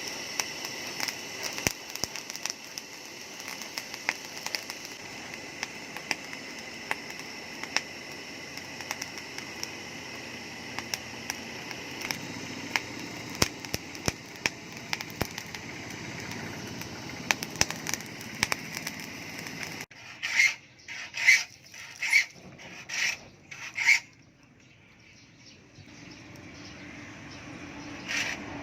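Abrasive work on a steel blade: a steady rasping grind with scattered clicks, then about six separate rubbing strokes a little under a second apart that stop about four seconds before the end.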